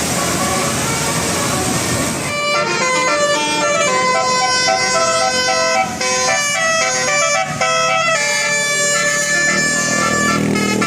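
Bus 'telolet' Basuri multi-tone horn playing a melody: a run of held notes stepping up and down in pitch, starting about two seconds in after the noise of passing traffic. A low engine rumble rises near the end.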